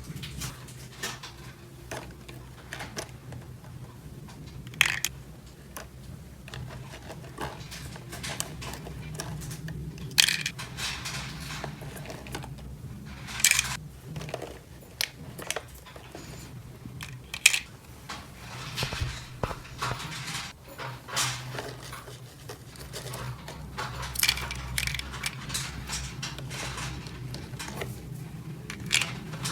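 Small plastic toy pieces clicking and clattering as they are handled and set down, in irregular taps and knocks with a few sharper clacks, over a steady low hum.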